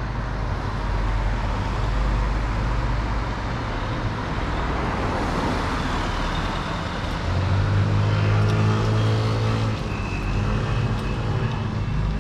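City street traffic: vehicles passing, with a swell of road noise about halfway through. A larger engine then runs with a low steady hum for a couple of seconds.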